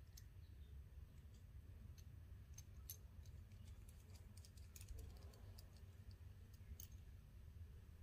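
Quiet, scattered light clicks of a small brass skull buckle's parts being handled as its shackle pin is unscrewed and pulled from the shackle, over a low steady hum.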